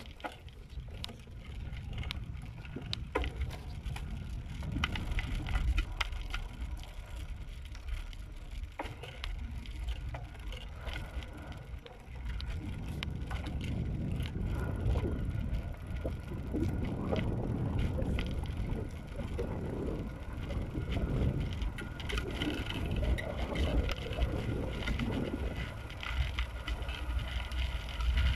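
Wind buffeting the microphone during a bicycle ride, with scattered light clicks and rattles from the bike; the rush grows louder about halfway through as the pace picks up.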